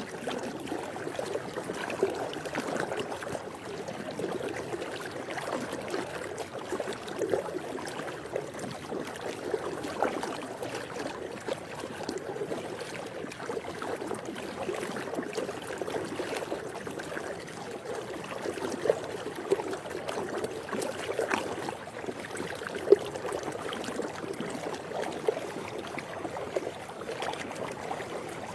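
Swimming-pool water lapping and trickling: a steady watery wash with frequent small splashy peaks, one sharper splash about three-quarters of the way through.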